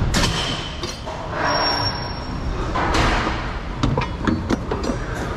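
Scattered metal knocks and clanks as a metal bar is handled and a truck's side storage compartment hatch is opened, with a short rushing hiss about a second and a half in.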